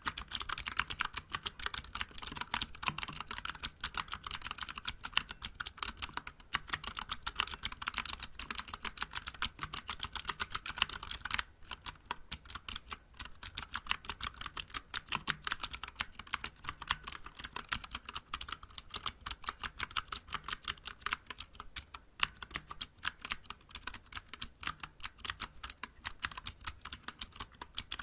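Continuous fast typing on a Vortex Vibe mechanical keyboard with Cherry MX Blue switches and SA-profile keycaps: a dense run of crisp key clicks, with brief pauses about six and eleven seconds in.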